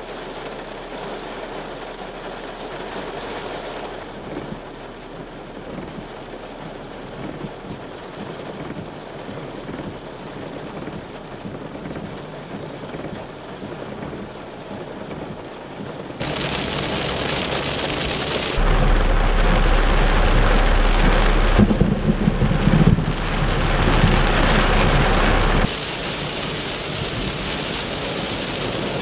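Heavy rain pouring down in a steady hiss. It grows louder and closer about halfway through, joined by a low rumble for several seconds before the level drops back near the end.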